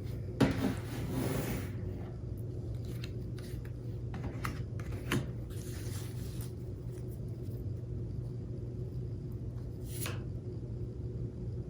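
Tarot cards being handled: a sharp click followed by a sliding, rubbing rustle, then scattered light clicks and short rustles, over a steady low electrical hum.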